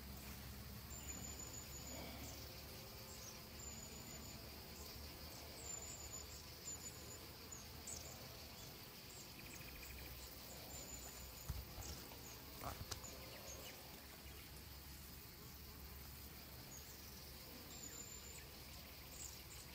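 Faint outdoor ambience of insects: short high-pitched chirps repeating every second or two over a low hiss, with a couple of faint clicks around the middle.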